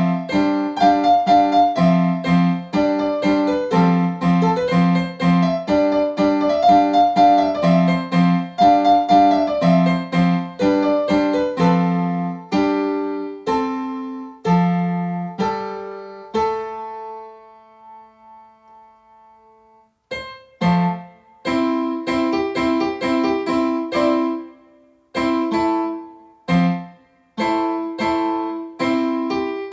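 Electronic keyboard on a piano voice, played through an external loudspeaker box: chords and melody notes that slow down to a held chord ringing away to near silence. Playing starts again about two-thirds of the way in, with two brief breaks near the end.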